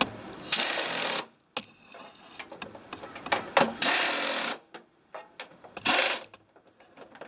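Power tool, most likely an air ratchet, running three short bursts of under a second each with small clicks between them, as it drives the door hinge bolts home.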